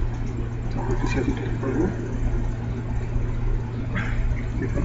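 A steady low hum, with faint indistinct murmuring about a second in and again near the end.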